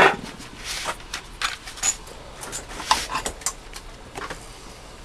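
Scattered light clicks and small metal clinks of tools and parts being handled on a workbench around an opened CB radio chassis, with a louder knock at the start.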